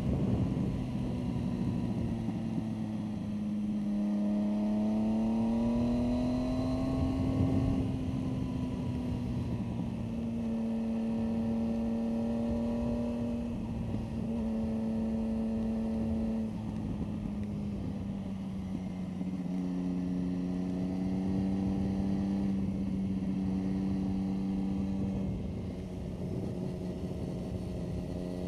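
Motorcycle engine running on track, its pitch climbing for a few seconds, then easing back and holding, with a couple of brief breaks and a step down in pitch. Wind rush on the microphone, strongest at the start.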